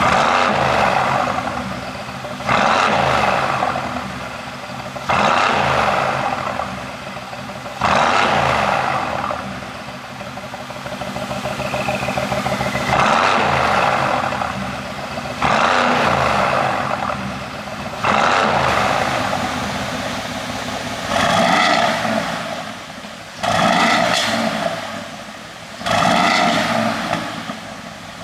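Mercedes-AMG GT S's twin-turbo V8 blipped over and over, about every two and a half seconds, each rev dropping back with a crackle of exhaust pops from a pops-and-bangs tune.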